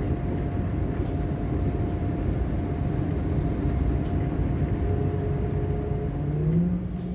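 Class 180 diesel multiple unit on the move, heard from inside the carriage: a steady low rumble of its underfloor Cummins diesel engines and wheels on the rails, with a thin steady whine. Near the end a tone rises briefly.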